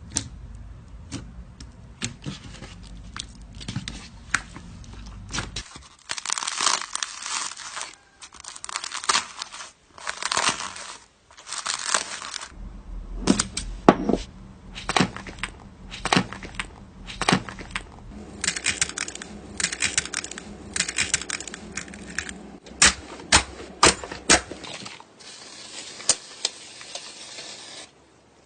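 Slime being squeezed, stretched and poked by hands, giving sharp clicking pops and bursts of crackling, crinkly squelching, in a run of short separate clips that change abruptly several times.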